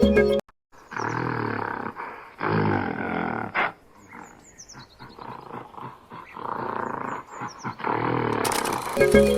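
A recorded wild animal roaring in a series of rough calls, played as a sound effect; background music stops just before it and returns near the end.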